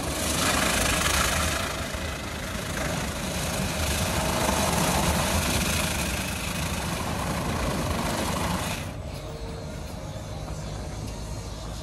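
WashTec EasyWash rollover car wash running, its green Softecs side brushes spinning with a steady noise that drops away suddenly about nine seconds in as the brushes come to rest. A low machine hum carries on underneath.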